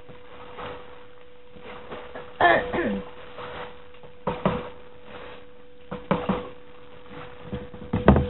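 Canoe paddle strokes: short splashes and knocks every couple of seconds, over a steady humming tone. A brief voice sound, like a cough, comes about two and a half seconds in.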